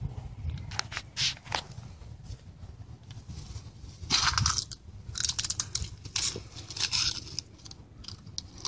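English Mastiff puppy chewing and nosing in the grass: irregular crunching and rustling bursts, the loudest about four seconds in, over a steady low hum.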